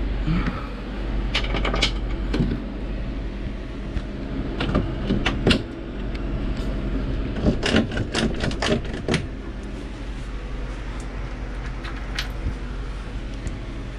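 Scattered metal clinks and knocks in short clusters as a generator's mounting brackets and a stainless steel drip tray are shifted and lined up by hand, over a steady low hum.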